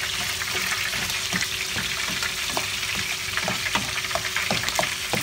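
Diced green capsicum, onion and garlic sizzling in oil in a nonstick pan while a spatula stirs them, with frequent small crackles and scrapes over a steady hiss.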